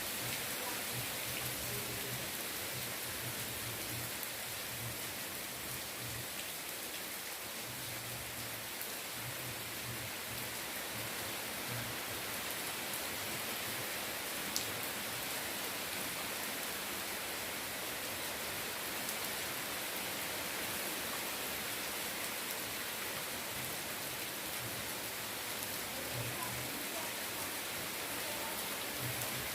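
Rain falling steadily, an even hiss, with one sharp tick about halfway through.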